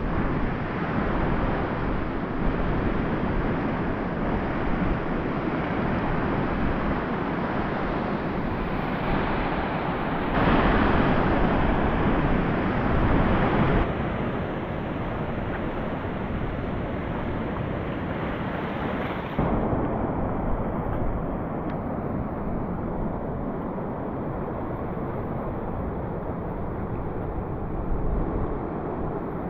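Wind rumbling on the microphone over the steady wash of sea surf. The noise changes abruptly in level and tone a few times.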